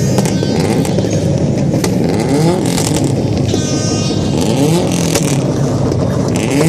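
Several Subaru cars' flat-four boxer engines running and revving as they drive past, with overlapping rising engine notes. A brief high-pitched tone sounds about four seconds in.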